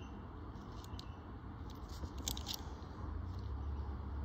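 Light clicks and rustles of Australian one-dollar coins being handled and swapped between the fingers, a few at a time, over a low steady rumble that grows a little louder near the end.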